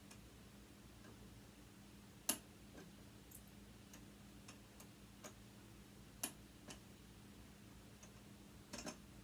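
Sparse light clicks and taps of hand tools on small metal sewing-machine motor parts, the sharpest about two seconds in and another around six seconds, over near silence.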